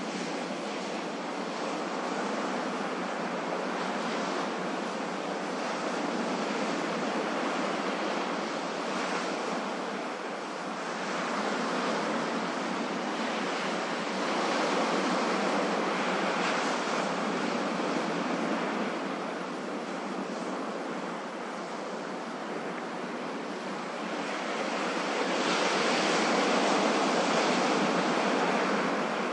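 Ocean waves washing on a shore: a continuous rushing surf that swells and eases slowly, with the biggest swell near the end.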